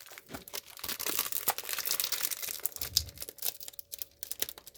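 Crinkling and crackling of a comic mystery bag being handled and torn open, a dense run of small crackles.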